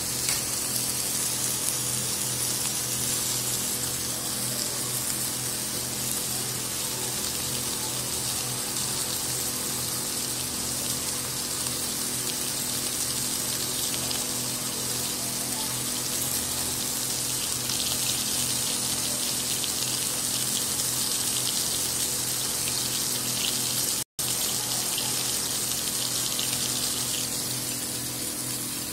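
Dried fish pieces and fish heads frying in shallow oil in a pan: a steady sizzling hiss as the fish soften in the oil, with a faint low hum underneath. The sound cuts out for an instant near the end.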